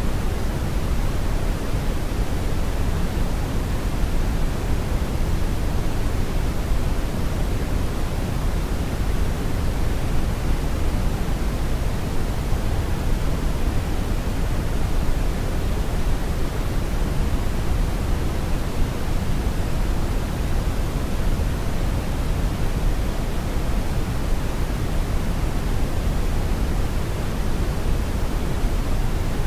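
Steady brown noise: an even, unchanging rumbling hiss, heaviest in the low end.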